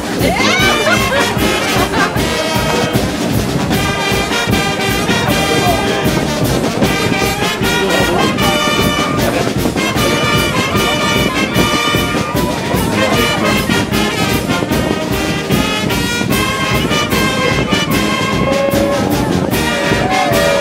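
Salsa music with a brass section of trumpets and trombones playing phrases over a steady, busy percussion beat.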